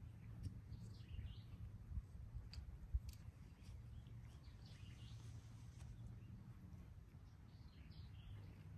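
Quiet open-air ambience: a low steady rumble with faint bird chirps now and then, and a few soft clicks, the clearest about three seconds in.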